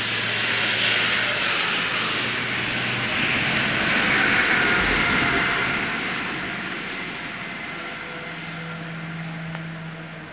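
A jet aircraft's rushing roar that swells to a peak about four seconds in and then slowly fades, its pitch sinking as it goes: a plane passing overhead.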